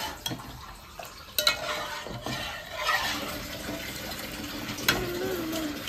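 Metal ladle stirring watery dal in a metal pot, the liquid sloshing, with a few sharp clinks of the ladle against the pot.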